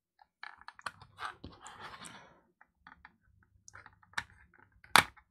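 Plastic pry tool working around the clipped-in face mask of DJI Goggles 2: scattered small plastic clicks and a short scrape, then a sharp snap near the end as a clip releases.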